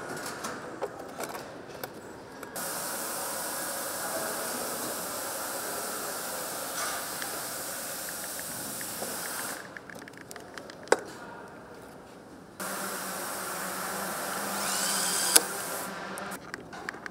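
Workshop power tools at work: a steady hissing tool runs for about seven seconds, then a few clicks and a sharp knock, then a second run with a whine that rises in pitch and stops on a sharp click.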